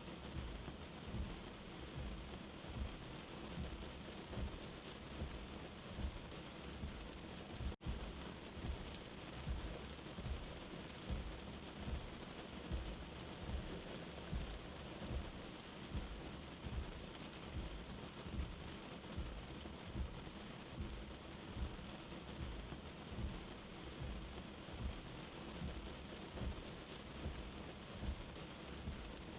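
Steady rain falling, with low rumbling thuds about once a second underneath and a brief dropout about eight seconds in.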